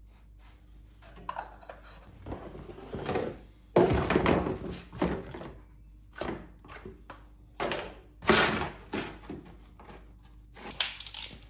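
Plastic drain tub and plastic funnels being handled, set down and pushed across a tile floor: a string of irregular thunks and knocks, the loudest about four and eight seconds in.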